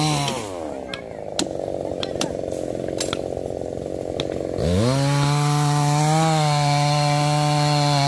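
Two-stroke chainsaw engine dropping from high revs to idle in the first second, idling with a few sharp knocks, then revved hard about halfway through and held at high speed.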